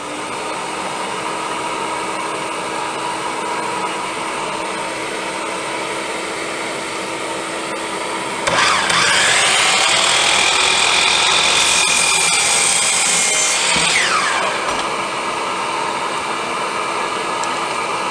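Hercules dual compound miter saw motor coming up to speed and running free. About eight seconds in, the blade cuts through a clamped stack of ten wood boards for about five seconds, louder and with a ringing whine. Then it goes back to running free.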